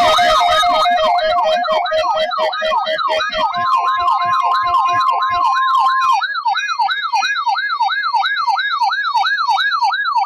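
Electronic siren rapidly sweeping up and down in pitch, about three cycles a second, with a steady tone under it for the first few seconds and a second steady tone joining for a few seconds in the middle. It cuts off abruptly at the end.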